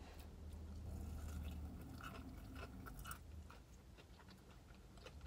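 Person chewing a bite of a boneless mild buffalo chicken wing, with small wet mouth clicks and soft crunches, over a low steady hum.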